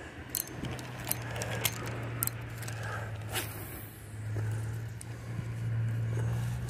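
A motor running with a steady low hum that swells and eases in loudness, with scattered clicks and handling noises over it.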